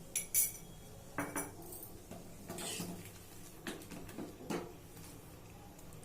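Metal kitchen utensils clinking and knocking against a pot and dishes: a string of irregular clinks, a short scrape about two and a half seconds in, then fewer knocks, dying away in the last second or so.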